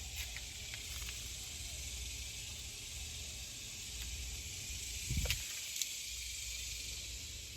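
Chorus of cicadas buzzing: a steady, high hiss-like drone. A single thump sounds about five seconds in.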